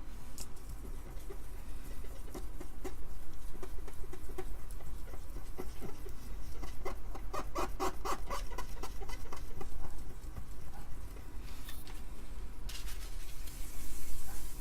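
Quick back-and-forth scrubbing strokes on an Amiga 500 motherboard, densest and loudest around the middle, working at rust stains that look like spilled coffee.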